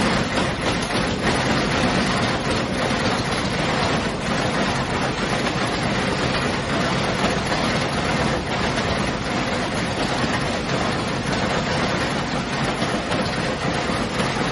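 Automatic through-hole component insertion machine running: a steady mechanical clatter with rapid small clicks throughout.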